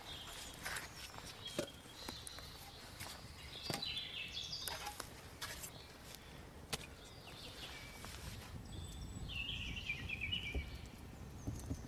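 Wood fire crackling with scattered sharp pops as round logs are knocked and laid onto it. Birds sing in the background, with warbling phrases about four seconds in and again near the end.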